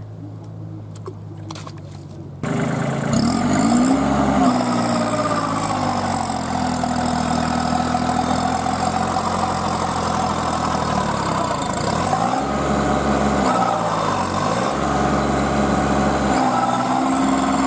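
Kubota B2441 compact tractor's three-cylinder diesel engine idling, then revved hard about two and a half seconds in and held at high revs. Its pitch sags and recovers under load as the tractor struggles with its wheels sunk in deep mud.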